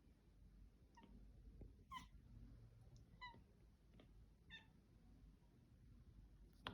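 Domestic cat making a series of short, faint calls, about one a second, the chattering-type noises a cat makes while watching birds. A sharp click near the end.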